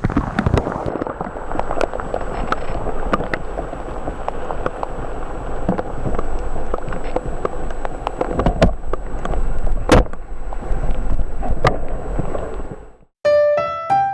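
Rushing water of a waterfall, a loud steady roar full of sharp crackles. It cuts off about thirteen seconds in, and piano music starts.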